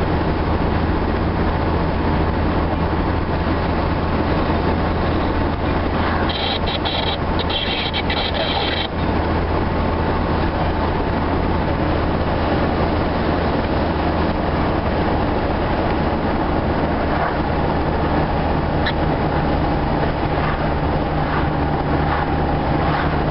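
Steady road noise and engine drone of a car heard from inside its cabin while driving. A brief high buzz comes in about six seconds in and stops near nine seconds.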